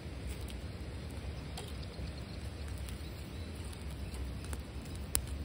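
Wood campfire crackling, with scattered small pops and one sharper pop near the end, over a steady low rumble.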